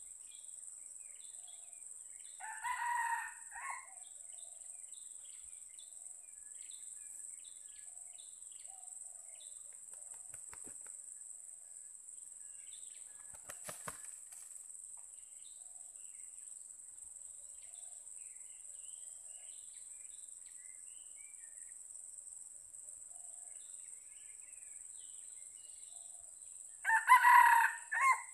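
A red junglefowl rooster crowing, two short crows: a fainter one about three seconds in and a loud one near the end, over a steady high-pitched insect drone.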